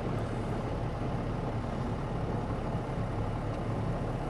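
Tractor diesel engine idling steadily.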